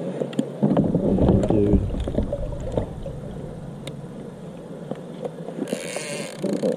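Knocks and thuds on a plastic fishing kayak's hull with water sloshing as a big blue catfish is handled aboard, busiest in the first two seconds, then scattered clicks and a short splashy hiss near the end.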